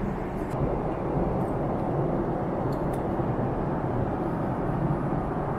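Steady in-flight cabin noise of a Boeing 777-300 airliner: an even, low rush of airflow and engine noise, with a few faint light clicks.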